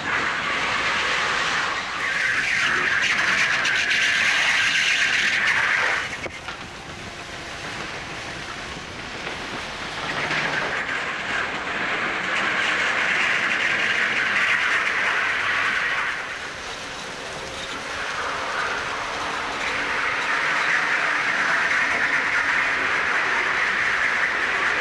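On-board sound of a go-kart driving a lap of an indoor track: a steady rushing drone of kart and air noise that swells along the straights and drops back twice, about six seconds in and again about sixteen seconds in, as the kart slows for corners.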